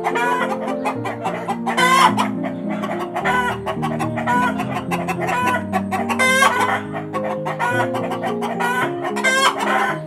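Chickens clucking rapidly, with four louder drawn-out calls, over background music playing a steady melody.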